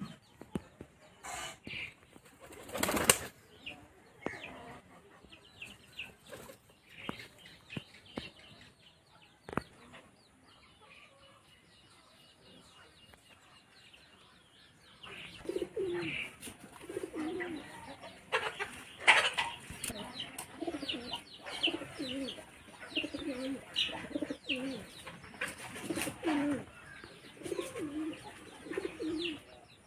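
Pigeons at a loft: scattered wing flaps and clattering in the first part, then, after a quiet spell, a long run of repeated low cooing from about halfway, with higher chirps mixed in.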